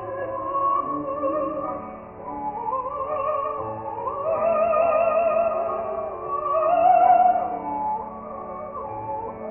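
Background music: a slow melody carried by a voice-like line with a strong wavering vibrato, sliding from note to note over sustained lower notes.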